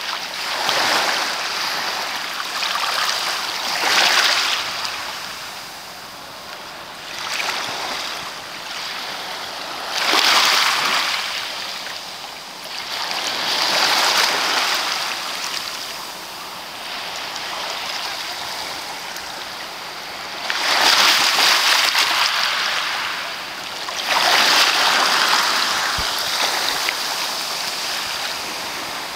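Small waves breaking and washing up a sandy beach, a hiss that swells and falls back every few seconds.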